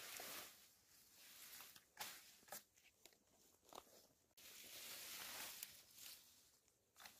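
Faint rustling of sweet potato vines and leaves being pushed aside and handled, swelling and fading in waves, with a few sharp clicks.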